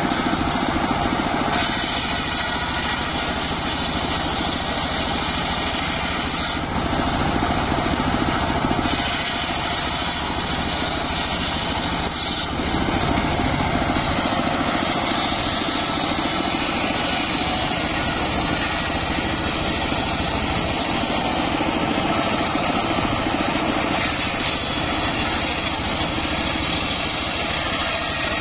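Large circular table saw running steadily while its blade rips lengthwise through mahogany boards. A higher hiss rises over the machine's drone during each cut, about three times, each lasting a few seconds.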